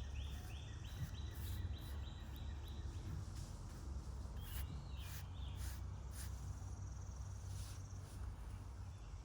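A songbird singing outdoors: a quick run of repeated short notes, about four a second, for the first three seconds, then a shorter burst of notes around the middle, over a steady low background rumble.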